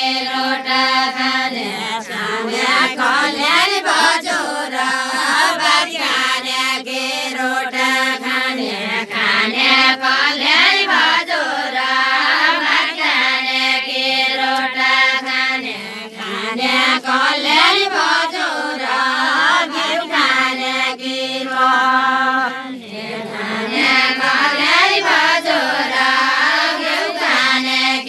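A group of women singing a traditional Nepali Deuda folk song together, with no instruments, in long held phrases that rise and fall in pitch.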